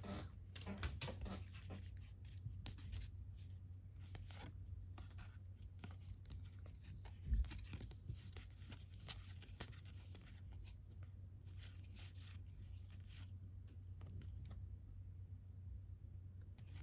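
Faint rustling, tearing and crinkling of a baseball card pack's wrapper being opened, then the cards handled and slid through by hand, with a steady low hum underneath and one dull thump about seven seconds in.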